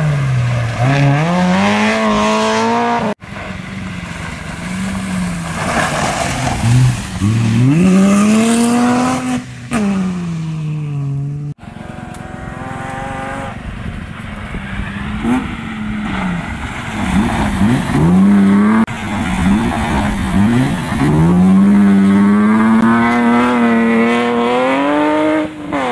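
Rally cars on a gravel stage, one after another, their engines revving hard. The pitch climbs and drops sharply over and over with gear changes and lifts for corners. The sound comes in three passes, each breaking off abruptly.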